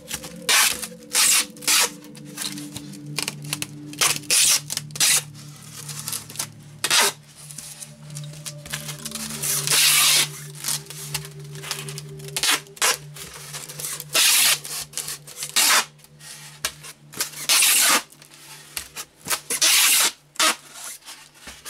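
Strapping tape pulled off a handheld tape-gun dispenser in repeated ripping pulls as it is wound around a plastic-wrapped styrofoam block, some pulls short and some about a second long.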